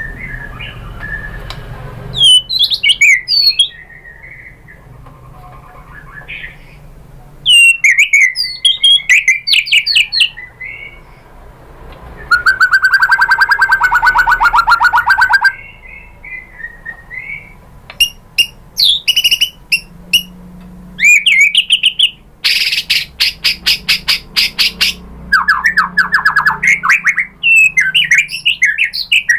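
White-rumped shama (murai batu) singing a loud, varied song: whistled, gliding phrases, rapid trills lasting a few seconds each, and bursts of fast repeated notes, with short pauses between phrases.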